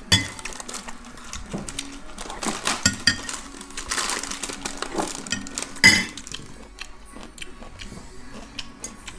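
Close-up eating sounds: a metal spoon clinking against a ceramic soup bowl, slurping of wonton soup broth, and chewing. Sharp clinks come right at the start and, loudest, about six seconds in.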